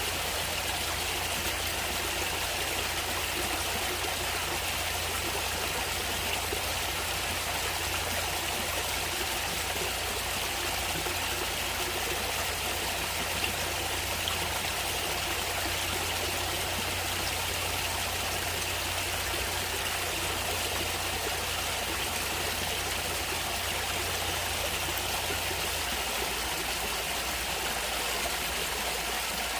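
Natural stream water flowing steadily.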